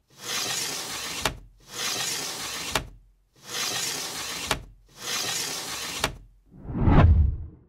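Video-editing transition sound effects: four noisy whooshes of about a second and a half each, each ending in a sharp click. They are followed by a deeper whoosh that swells into a loud boom near the end and cuts off abruptly.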